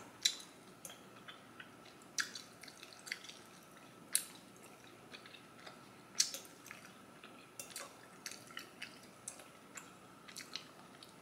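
A person chewing Korean spicy rice cakes (tteokbokki): faint, irregular mouth clicks and smacks, a few of them sharper than the rest.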